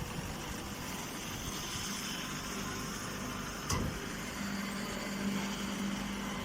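Round straw baler running: a steady mechanical noise with a single knock a little under four seconds in, after which a steady low hum sets in.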